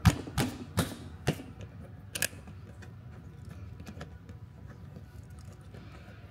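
Sharp plastic clicks and knocks as the side access panel of a portable inverter generator's plastic housing is pressed back into place: five in the first two and a half seconds, the first the loudest, then only faint handling sounds.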